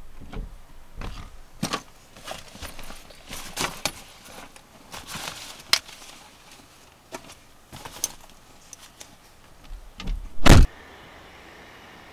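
Rustling, clicks and knocks of things being handled in and around a car, with one heavy thump of a car door slamming shut near the end.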